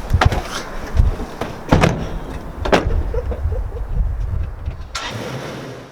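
Car doors opening and shutting, with about four sharp thuds in the first three seconds, over a low steady rumble.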